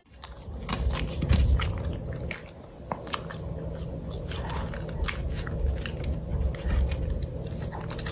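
Small dog gnawing on a wooden gate bar, its teeth crunching and scraping the wood in a run of quick irregular clicks.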